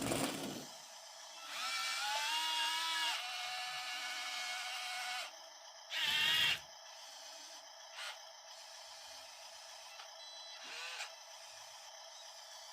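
Small electric motors of a 1:50 scale RC construction model whining through their gears, in a few runs. The longest run lasts a few seconds, holding one pitch after a slight rise. A louder short burst comes about halfway through, and a brief rising whine near the end.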